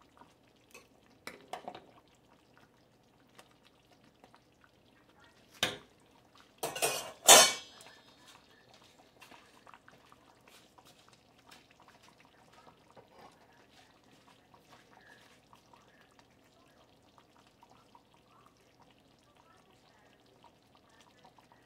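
A metal ladle stirring in a pot of simmering chicken adobo, with a few light clicks, then knocking and clanking loudly against the enamelled pot several times about six to seven seconds in. Faint light ticks follow.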